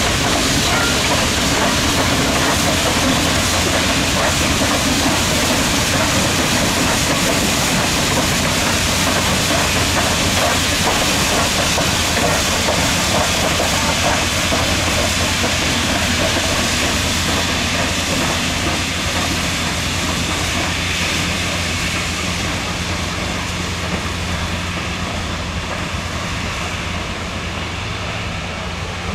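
Steam locomotive, the 2-6-6-2 Mallet C&O 1309, working past with its passenger train: a steady, noisy rush of steam and running gear that fades slowly as the train pulls away.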